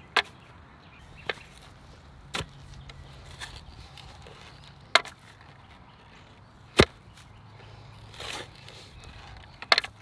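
Clamshell post hole digger blades jabbed into the ground: about six sharp chopping strikes at uneven spacing, one every one to two seconds, the last one doubled.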